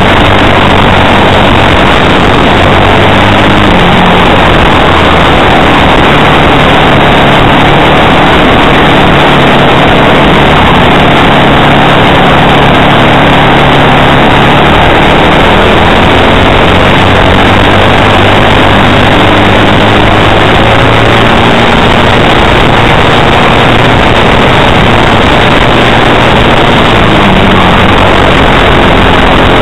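Racing kart's Briggs & Stratton World Formula single-cylinder four-stroke engine heard onboard under racing throttle, very loud, its pitch rising and falling as the kart accelerates out of corners and slows into them.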